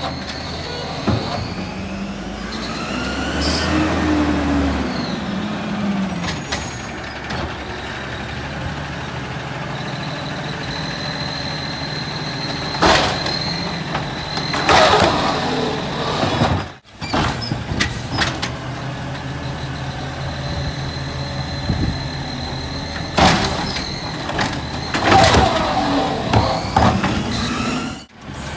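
Natural-gas Peterbilt side-loading garbage truck running while its automated arm lifts and empties wheeled bins: a hydraulic whine rises and falls as the arm moves, and several sharp bangs come as bins knock against the hopper.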